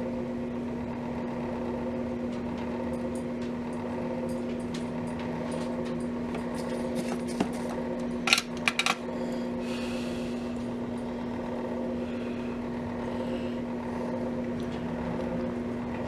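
A steady hum from a small fan or motor runs throughout. About eight seconds in come a few sharp clicks, the loudest sounds here, followed by a brief soft hiss.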